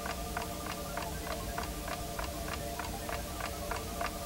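Wind-up mechanical alarm clock ticking steadily, about four ticks a second.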